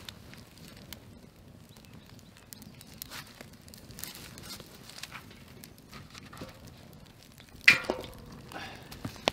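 Wood fire crackling in a metal fire bowl, with rustling steps in dry leaf litter. Near the end a sharp knock with a short metallic ring stands out as the loudest sound.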